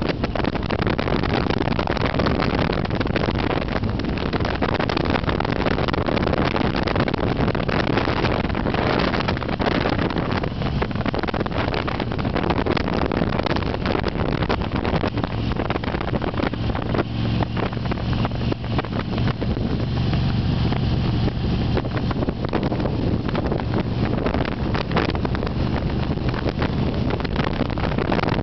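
A vehicle driving along a paved road: steady engine and road noise with heavy wind buffeting the microphone. The low engine hum grows louder for a few seconds past the middle.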